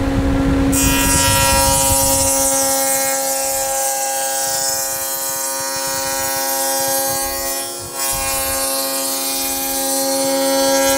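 Table saw with a stacked dado blade running and cutting a 3/4-inch-wide dado across a plywood panel. The motor and blade keep a steady hum under the hiss of the cut, with a brief lull about eight seconds in.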